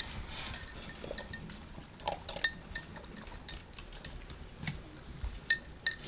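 A cocker spaniel feeding from a glazed ceramic bowl: repeated sharp clinks, several with a short ring, as the bowl is knocked, amid softer wet mouth sounds. The loudest clinks come about two seconds in and twice near the end.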